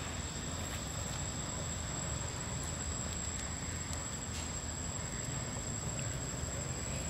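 Steady outdoor background: a thin, unbroken high-pitched insect whine over a low rumble, with a few faint clicks.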